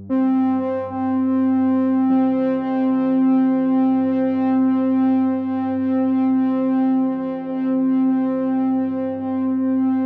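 Background music of sustained synthesizer tones held steadily, with a change of chord about two seconds in.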